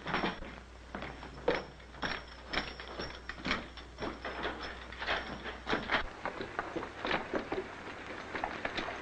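Irregular knocks and clatter, several a second. A low hum under them cuts off about six seconds in.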